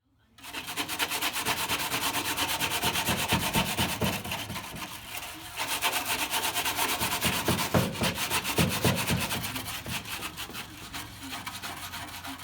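Scrubbing grime and buildup off a washing machine part, a rubbing sound in rapid, even back-and-forth strokes that starts about half a second in.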